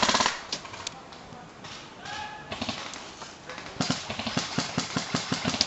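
A short rapid burst of airsoft rifle fire at the very start, then from about four seconds in a quick run of thuds, about six a second, of footsteps running.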